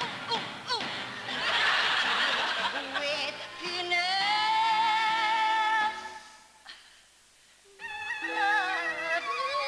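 A woman sings a show tune with orchestra backing, holding one long note with vibrato about four seconds in. The music drops away briefly about six seconds in, then the singing and band come back.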